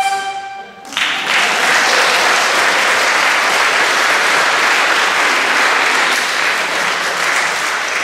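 The last chord of an accordion ensemble fades out, and about a second in an audience breaks into applause that carries on steadily.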